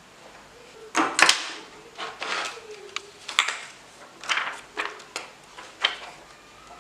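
Plastic parts of a disassembled keyboard and its membrane circuit sheet being handled: a run of sharp clicks, taps and short rustles, the loudest about a second in.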